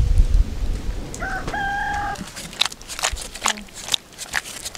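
A rooster crowing once about a second in: a rising start, then a long held note. Scattered light clicks and taps follow.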